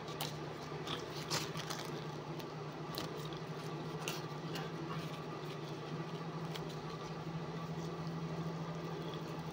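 Quiet eating sounds: chewing and the soft tearing of flatbread, with a few small clicks, over a steady low hum.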